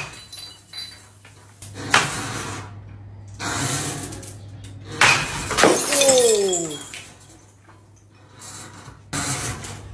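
Glass bottles in swinging crates smashing: sharp crashes of breaking glass about two seconds in and again about five seconds in, each trailing off in tinkling, and another crash near the end. A falling pitched tone follows the second crash, and a faint steady low hum runs underneath.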